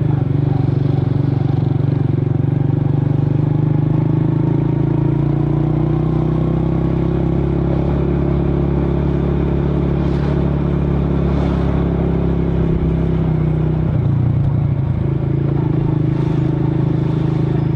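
Scooter engine running steadily, its note changing slightly about fourteen seconds in.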